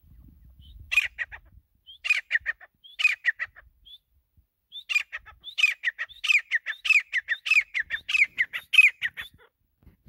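Grey francolin calling loudly in repeated phrases, each a sharp high note followed by quick falling notes. Three short phrases come a second apart, then from about halfway a continuous run of phrases that stops shortly before the end.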